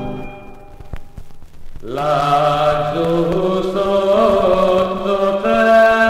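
A recording of an Italian partisan song: a held chord fades away, then about two seconds in a vocal group starts singing together, moving from note to note in steady steps.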